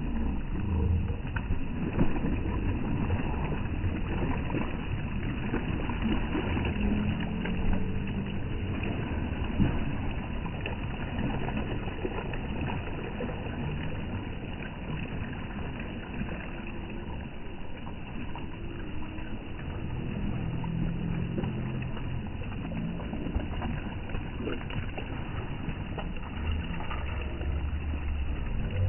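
Seaside ambience: a steady low rumble, with sea water lapping against the stone pier and rocks.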